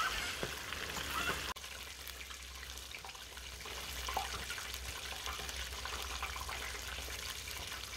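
Battered chicken pieces deep-frying in a pot of hot oil: a steady sizzle over a low hum.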